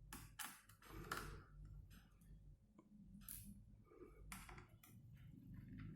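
Faint, irregular clicks and light scrapes of a screwdriver working the small screws of a laptop's hard-disk bay, with a low hum underneath.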